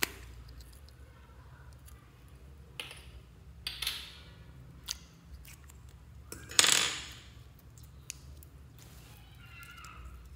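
Plastic slime container being opened with a sharp click, then clear red jelly slime handled with scattered clicks and wet squelching, the loudest squelch about six and a half seconds in and softer squishing near the end.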